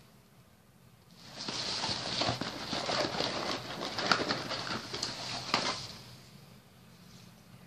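Rustling and crinkling of a nylon backpack and the small items being packed into it, a burst of handling noise starting about a second in and stopping about two seconds before the end.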